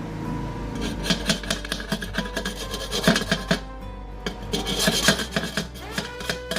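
Quick, irregular scraping strokes of a hand tool working metal, several a second, over background music with held notes.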